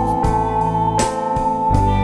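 Instrumental background music with a steady beat: a held high note over repeated plucked notes.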